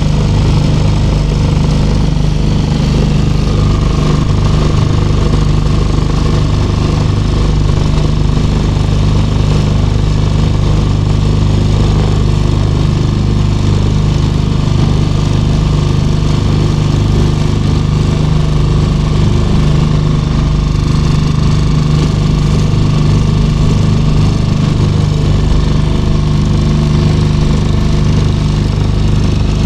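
Small motorboat's engine running steadily at a constant speed, a continuous loud drone with no change in pitch.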